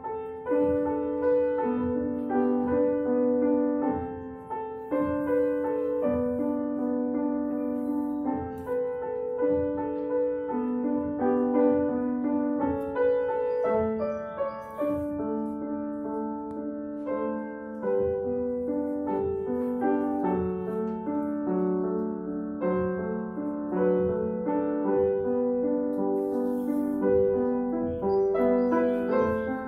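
Grand piano played solo: a continuous flowing passage of notes at an even loudness.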